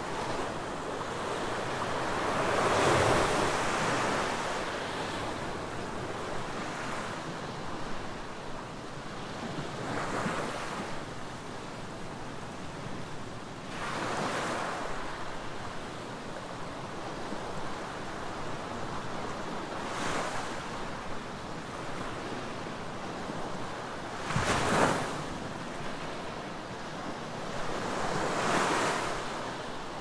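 Small ocean waves breaking and washing up a sandy beach, the surf hiss swelling and fading every few seconds, with a sharper splash of a wave about three-quarters of the way through.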